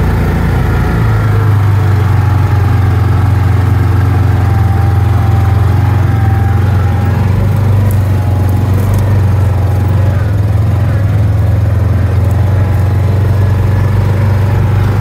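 Side-by-side utility vehicle's engine running steadily as it drives along, a low drone that shifts slightly in pitch about a second in.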